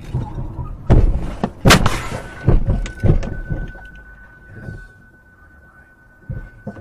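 A car running into the back of a pickup truck at low speed: a series of heavy knocks and bangs, the loudest about two seconds in. A steady high beep starts during the bangs and keeps sounding, with a couple of softer knocks near the end.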